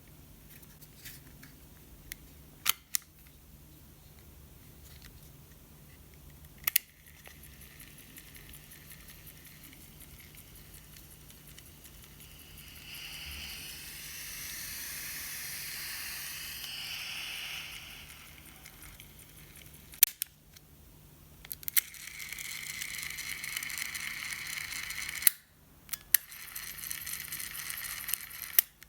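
Sony M-100B microcassette recorder being operated: sharp clicks of its keys, with two stretches of the small tape mechanism running in between, a high whir that wavers in pitch.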